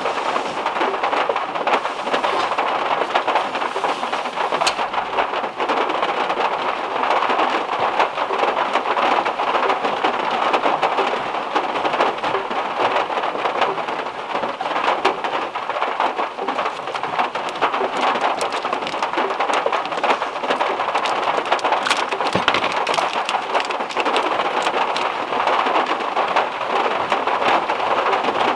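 Heavy rain falling on a Volkswagen Beetle's metal roof, heard from inside the car: a steady white noise made of dense drops, with many small ticks.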